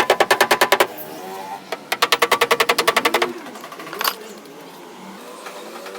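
Rapid hammer taps on a car's sheet-metal body panel, about eight a second, each with a short metallic ring. There are two runs, the first ending just under a second in and the second running from about two seconds in to past three, followed by a brief voice-like sound.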